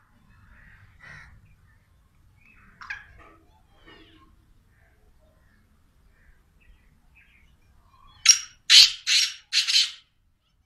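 Caged male black francolin (kala teetar) calling: a quick run of four loud, harsh, grating notes near the end, after a few faint chirps.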